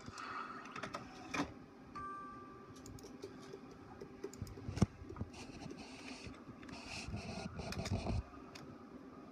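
HP OfficeJet 4500 inkjet all-in-one printer printing: the paper feed and print carriage whir and click, with a louder clack about five seconds in and a run of whirring that stops abruptly near the end.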